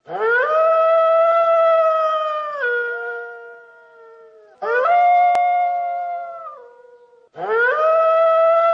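Wolf howling: three long howls, each rising quickly at the start, held on a steady pitch, then stepping down lower and fading before the next begins.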